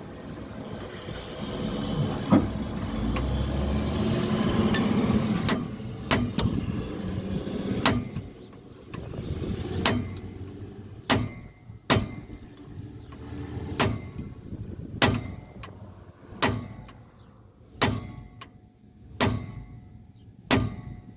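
Hammer blows on a seized rear-axle bearing race in a 1966 Oldsmobile's axle housing, about a dozen sharp metallic strikes every second or two, each ringing briefly. They are the race being beaten on to drive it out. The first few seconds are a steady rushing noise instead.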